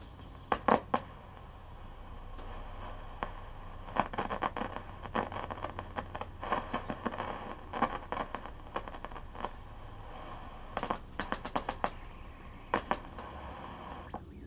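A 1966 Sylvania tube color TV's front tuning knob being turned, clicking in irregular clusters of clicks over a steady low hum and hiss. The set shows no picture and no station, which the restorer takes as a sign that the IF stage is not working.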